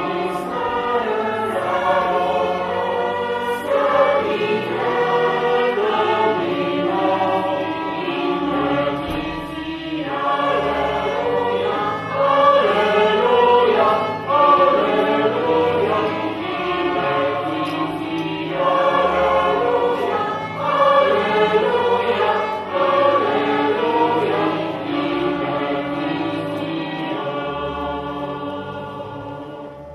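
Choir singing a church hymn in several voices, fading down over the last few seconds.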